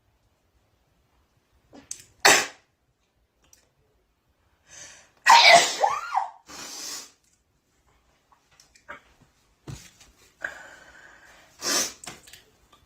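A woman sneezing several times in an allergic sneezing fit. There is a short sharp sneeze about two seconds in, the loudest about five seconds in with her voice crying out in it, and another near the end.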